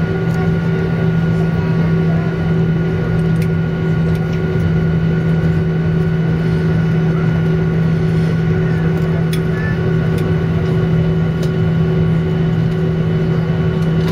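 Steady cabin noise inside a jet airliner taxiing after landing: a loud, even hum of engines and air systems with a strong low drone and a few fainter higher steady tones.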